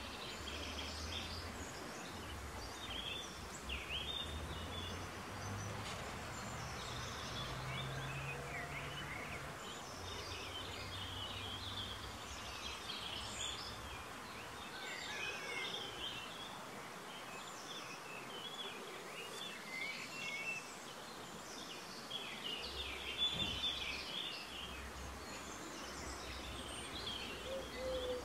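Several small birds singing and chirping in overlapping short phrases, over a low rumble that comes and goes.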